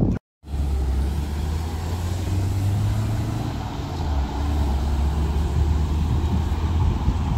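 Road traffic with a heavy vehicle's engine giving a steady low hum under the general street noise. The sound drops out completely for a moment just after the start.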